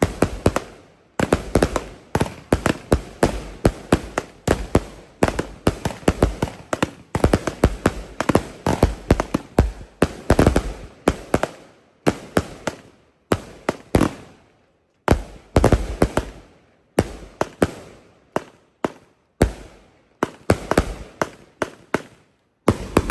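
Three consumer firework cakes firing at once: a rapid, irregular string of launch thumps and loud salute bangs that goes on with hardly a break, apart from a brief lull about two-thirds of the way through.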